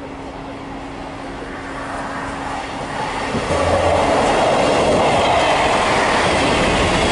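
Class 158 diesel multiple unit approaching and passing close by: the engine runs and the wheels clatter on the rails, growing louder and jumping up about three seconds in as the train draws level.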